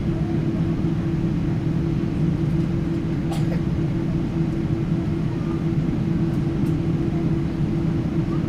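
Steady engine and airflow drone inside the passenger cabin of a Boeing 777-300 airliner, with an even low hum and a faint click about three seconds in.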